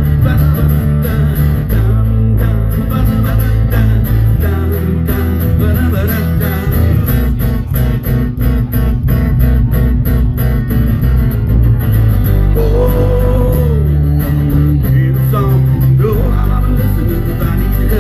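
Live guitar music: strummed guitars over a steady bass line, playing an instrumental break in a rock song, with a melody line bending in pitch in the middle.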